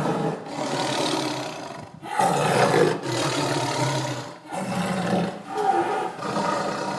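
Tiger roaring: three long, rough roars, each about two seconds, with brief breaks between.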